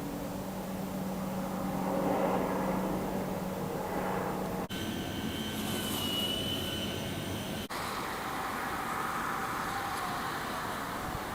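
Steady engine drone of an aircraft passing over, broken by two abrupt cuts about four and a half and seven and a half seconds in.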